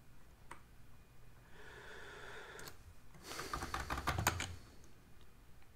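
Computer keyboard typing: one key click, then a soft breathy hiss, then a quick run of keystrokes lasting over a second near the middle, the loudest part.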